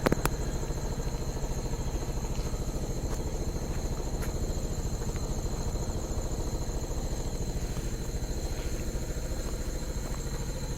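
A small engine idling steadily, with a fast, even low pulse. Two thin, steady high tones sound above it throughout.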